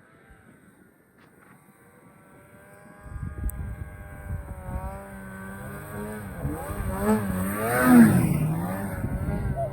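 Snowmobile engine. It is faint at first, then about three seconds in a much louder engine comes in and revs up and down, loudest near the end.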